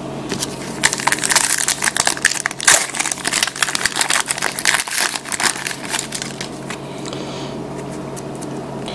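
Foil trading-card pack wrapper being torn open and crinkled by hand: a dense run of crackling from about a second in that eases off after about six seconds.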